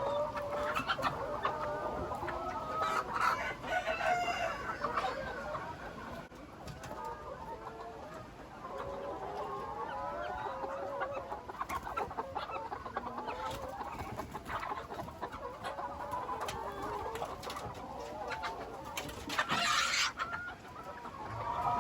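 A flock of laying hens clucking, many short wavering calls overlapping without a break, with a brief harsher burst near the end.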